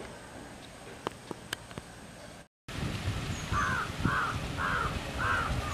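A bird calling four times in a row, short harsh calls about half a second apart, over a low wind rumble on the microphone. Before them, after a cut, a quieter stretch holds only a few faint clicks.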